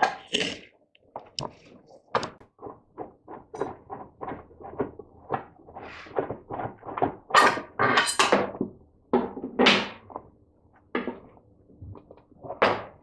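A Flymo lawnmower's blade and plastic impeller being taken off: a quick series of light clicks, then several louder knocks and clunks of metal and plastic parts.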